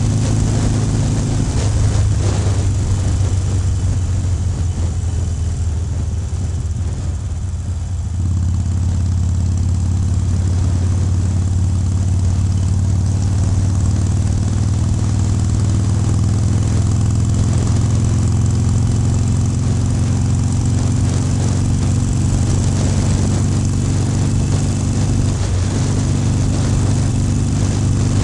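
Harley-Davidson Iron 883's air-cooled 883 cc V-twin engine running steadily, dipping a little in level about six seconds in and picking up again about eight seconds in.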